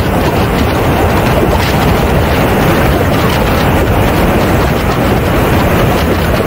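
Steady, loud rush of wind over a camera mounted under the belly of a radio-controlled A-10 model jet in fast, low flight, with the model's engine noise blended into it.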